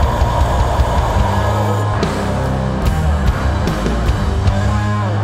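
Sludge metal band playing live: heavily distorted electric guitars over a drum kit, with cymbal hits. The riff changes about two seconds in.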